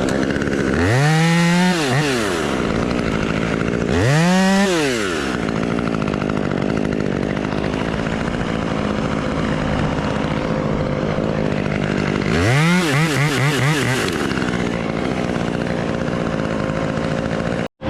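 Chainsaw idling, revved up and back down three times, once about a second in, again about four seconds in, and once more near two-thirds of the way through, as limbs are cut off a tree.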